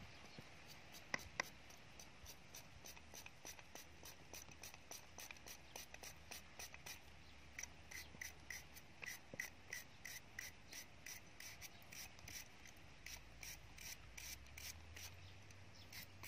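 Hand-held serrated peeler shredding and slicing a raw carrot: faint, quick scraping strokes, about four a second, with two sharper clicks about a second in.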